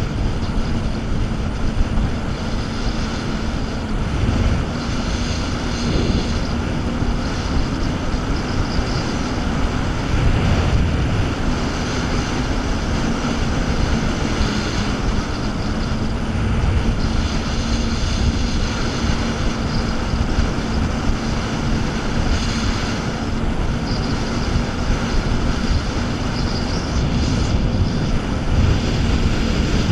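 Jet ski engine running steadily at speed, a constant hum over the rush of its wake.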